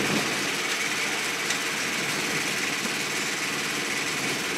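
Small engine running steadily.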